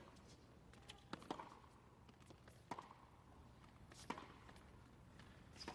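Tennis rally: a ball struck back and forth by rackets, with sharp hits about every second and a half, four in all, some with a brief ring of the strings.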